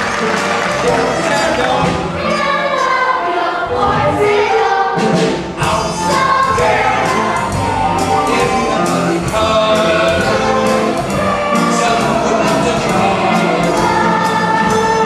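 A stage musical number: an ensemble of voices singing together over a backing accompaniment.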